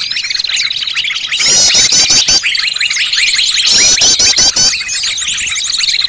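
Bird-luring recording of many small songbirds chirping and trilling at once, a dense overlapping chorus with fast repeated trills that come and go.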